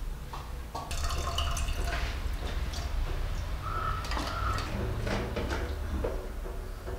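Liquid dripping and pouring into an open pressure cooker as tamarind is squeezed into the sambar, with scattered clinks and knocks of a steel cup and spice jars.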